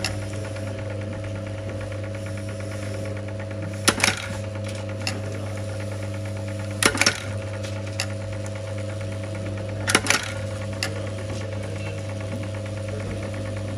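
Motorized button-attaching press humming steadily, its ram striking three times about three seconds apart as it sets metal tack buttons onto denim. Faint clicks of metal buttons being handled come between the strikes.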